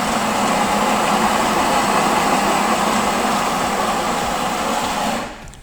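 Electric espresso coffee grinder running steadily as it grinds a double dose of beans, then stopping about five seconds in.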